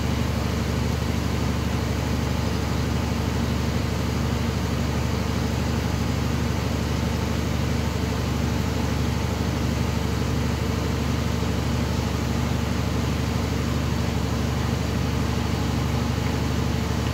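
Air-cooled water chiller running: its refrigeration compressor hums steadily with several constant tones under the even rush of the condenser fan. The compressor is cycled on and working to pull the water down to its setpoint.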